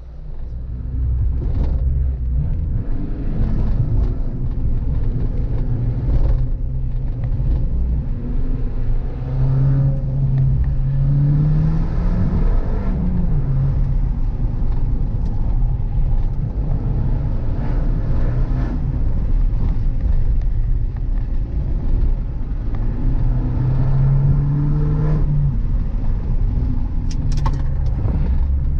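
Fiat 595 Competizione's 1.4-litre turbocharged four-cylinder, breathing through a Record Monza exhaust with a 200-cell downpipe, running loudly from about a second in. Its pitch rises twice as it accelerates, with a sharp crack near the end.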